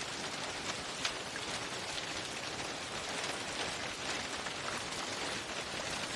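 Steady hiss of rain with faint scattered ticks of drops.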